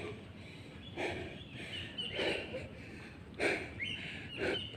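A woman breathing hard from exertion during squats and burpees, with a sharp exhalation about once a second, five in all. Birds chirp in the background.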